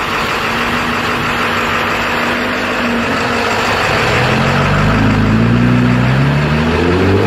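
A car engine running, its pitch climbing steadily over the last three seconds as it revs up, then starting to drop back at the very end, over a steady hiss.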